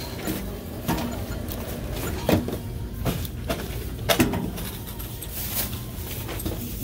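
Thin plastic produce bags rustling as groceries are lifted out of a plastic shopping basket, with several sharp knocks and clicks of the items and basket being handled, over a steady low background hum.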